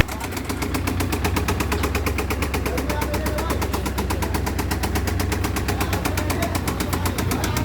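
Engine idling with a rapid, even clatter, about a dozen sharp knocks a second, over a steady low hum.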